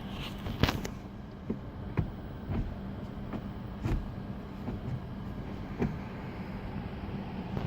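Ford Focus RS's turbocharged 2.3-litre four-cylinder EcoBoost engine idling steadily, with a few sharp clicks over it.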